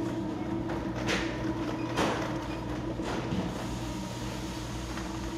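Steady hum of a supermarket's equipment, with a faint thin tone, and three short knocks about a second apart in the first half.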